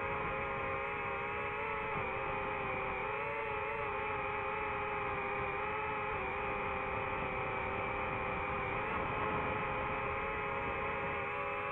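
DJI FPV drone's motors and propellers whining steadily in flight, a stack of held tones over a rushing hiss, the pitch wavering slightly with throttle.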